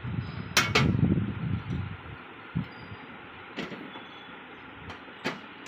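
Red Venus five-compartment metal tool box being opened by hand: its trays swing out with two sharp metal clanks about half a second in and a low rattle, then a few lighter clicks.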